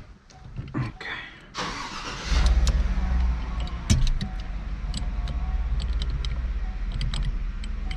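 A car engine is cranked over and catches about two seconds in, running loudest at first and then settling into a steady idle. A sharp click comes about four seconds in.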